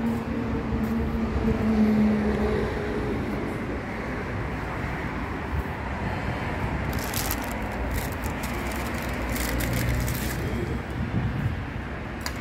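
Road traffic noise: a motor vehicle running, with a steady low hum during the first few seconds.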